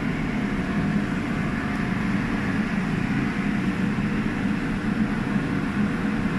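Heat cannon (industrial fan heater) running with a steady, low blowing hum, heating a chiller compressor to drive out moisture.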